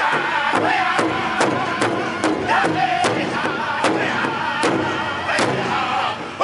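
Powwow drum group singing together in high voices while beating a large hide drum in a steady pulse of about two and a half strokes a second.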